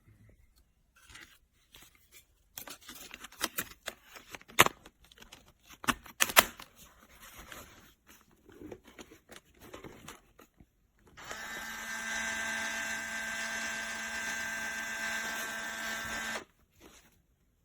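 Fujifilm Instax Wide 300 instant camera being handled, with scattered clicks and a few sharp louder clicks. Then its film-ejection motor whirs steadily for about five seconds, pushing out a print, and stops abruptly.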